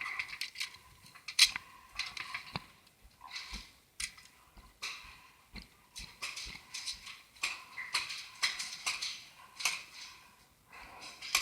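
Paintball markers firing: irregular sharp pops and clicks, a few close together, the loudest about a second and a half in.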